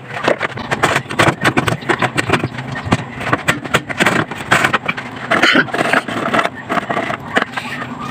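Hard plastic engine-bay cover being handled and fitted over the radiator support, with many irregular clicks, knocks and scrapes, over a steady low hum.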